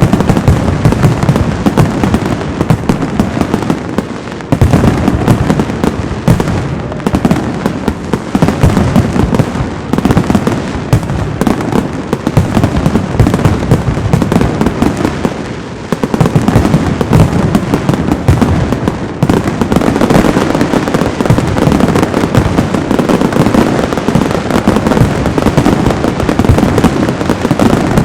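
Aerial fireworks display: a loud, dense, continuous barrage of shells bursting and crackling, easing briefly about 4, 16 and 19 seconds in.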